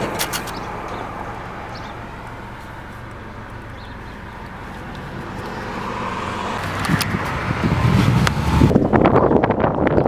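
Car driving: the road and engine noise dips as it slows, then grows from about six seconds in as it picks up speed. Near the end, wind buffets the microphone.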